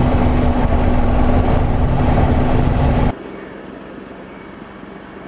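Military attack helicopter in low flight, heard loud and close: dense rotor and engine noise with a steady hum. About three seconds in it cuts abruptly to the much quieter, more distant sound of a helicopter in flight.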